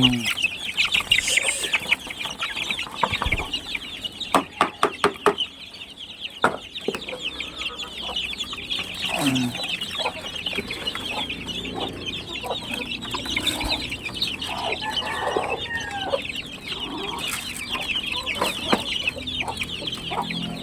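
Backyard chickens clucking as they feed, over a steady, fast, high-pitched chatter. A quick run of sharp taps comes about four to five seconds in.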